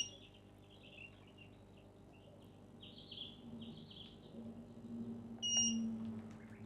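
Faint birds chirping, with two short high-pitched beeps about five and a half seconds apart and a low steady hum underneath.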